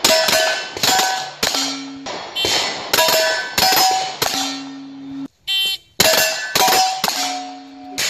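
Pistol-caliber carbine fired in quick strings at steel plates, about ten shots, most followed by the ringing clang of a hit plate.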